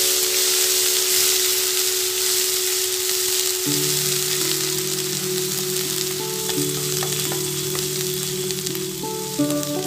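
Onion paste sizzling and frying in hot mustard oil in a kadai, stirred with a wooden spatula: a steady, even sizzle with faint stirring sounds.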